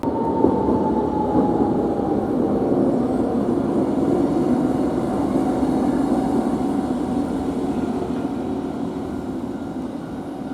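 Toden Arakawa Line streetcar running past with a steady rumble and a whine that slowly falls in pitch, the sound easing off toward the end.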